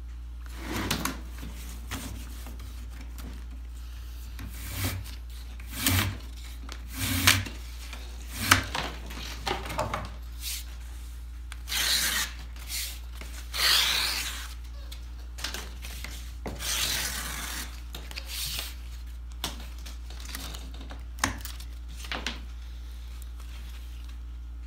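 Black ash splints being scraped with a knife, drawn across a leather lap pad: a run of rasping scraping strokes, each up to about a second long, mixed with scattered clicks and knocks of the wooden splints. A steady low hum lies underneath.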